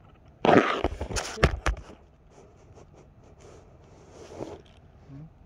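Rustling and knocking of a phone being handled against clothing, with a few sharp clicks, loudest from about half a second to two seconds in; fainter rustles and ticks follow.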